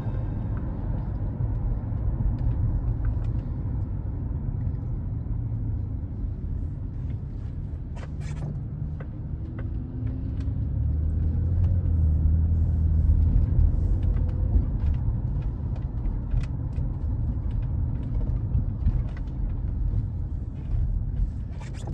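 A car running, a steady low rumble that swells for a few seconds midway, with a few faint clicks.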